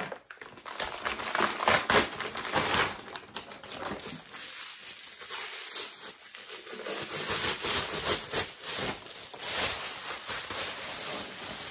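Thin clear plastic vacuum-seal packaging crinkling and rustling as it is torn open and pulled off a block of foam pet steps, with irregular crackles.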